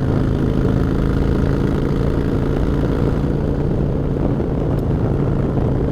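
Motorcycle engine running at a steady cruise, heard from the rider's own bike, with an even, unchanging engine note.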